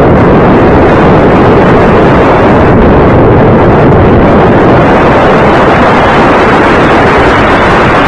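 Loud, steady rush of airflow over the microphone of a camera carried on a Radian RC glider in flight.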